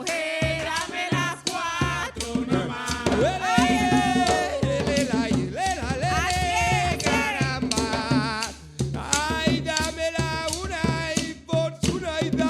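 Live Colombian Caribbean folk music: hand drums keep a steady, repeating beat under a high, wavering melody line.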